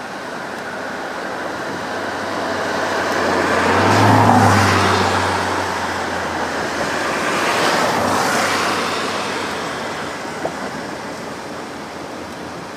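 KiHa 40 series diesel railcar running across a steel truss bridge, its engine hum and wheel noise swelling to loudest about 4 s in, rising again around 8 s, then fading as it moves away. The rush of the river below runs underneath.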